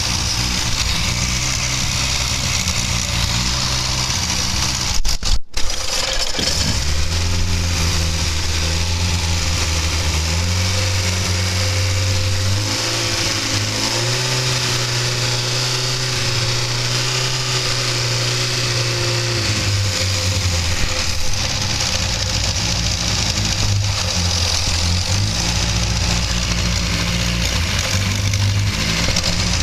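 BMC A-Series four-cylinder engine, a Gold/Silver Seal 8G replacement unit, running with its fan belt off after a fresh start. It idles, is brought up to higher revs and held there for several seconds mid-way, then drops back to idle. There is a brief knock and dropout about five seconds in.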